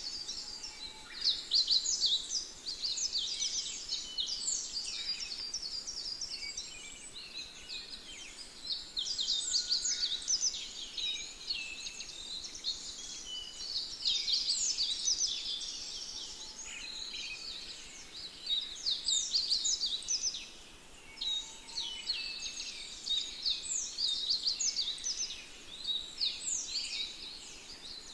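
A dense chorus of small birds chirping and twittering, many quick high calls overlapping, swelling and easing every few seconds.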